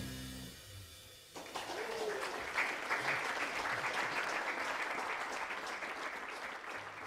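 The jazz quintet's last chord rings out and fades, then the club audience breaks into applause about a second and a half in, slowly dying down.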